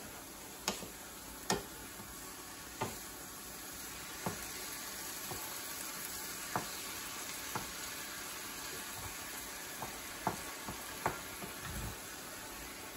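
Chopped zucchini, purslane and green beans sizzling in a nonstick skillet as a wooden spoon stirs them, with scattered taps of the spoon against the pan, more of them in the first few seconds.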